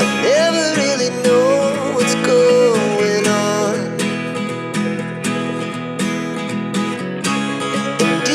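Background music with acoustic guitar playing under a sliding melody line.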